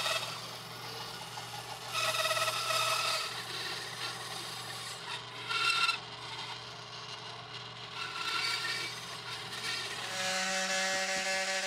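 Bandsaw running with a steady motor hum as its blade cuts through a PVC trim board, each pass into the board bringing a louder rasp with a pitched whine. The saw's hum stops about ten seconds in.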